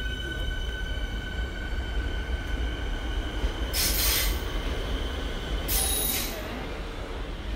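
Siemens Nexas electric train: a steady two-tone high whine over a low rumble, the whine fading out about halfway. Two short sharp hisses follow, about two seconds apart.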